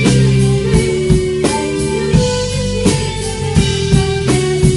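Live band playing a pop-rock cover: guitars, drum kit and keyboard together, with held chords over a steady drum beat.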